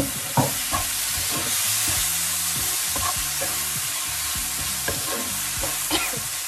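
Chopped mushrooms and peas sizzling steadily in a nonstick frying pan while a wooden spatula stirs them, with short scrapes of the spatula across the pan every second or two.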